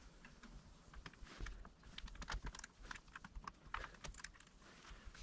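Faint, irregular small metal clicks and taps of an Allen wrench working the set screw on a Baldwin door knob.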